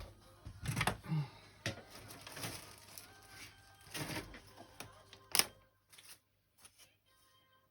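Scattered clicks and taps of plastic parts as a Lenovo 310-15ISK laptop is handled and opened up for a keyboard replacement. The sharpest click comes about five and a half seconds in.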